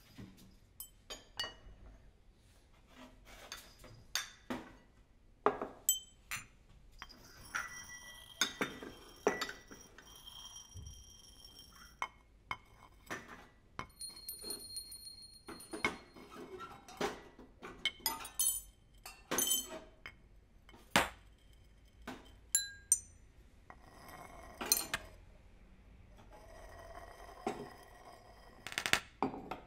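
Ceramic coffee cups and saucers clinking and knocking together and against a tiled tabletop and metal tray, with spoons tapping. An irregular run of sharp clinks, a few leaving a short ringing tone.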